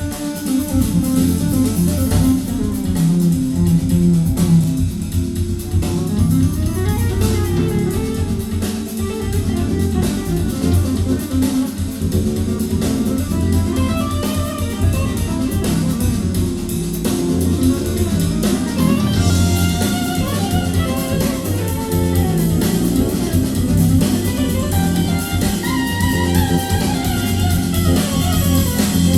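Guitar-led music with bass and drums playing steadily, played back from a vinyl record through the hi-fi setup under test.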